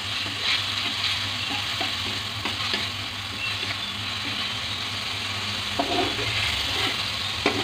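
Ground spice paste sizzling in oil in an aluminium wok while it is stir-fried, with the metal spatula scraping and tapping against the pan now and then.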